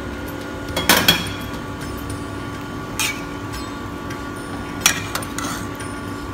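A few sharp metallic clinks and knocks against a stainless steel cooking pot holding boiling Swiss chard leaves: a quick double knock about a second in, another near three seconds, and more around five seconds, over a steady hum.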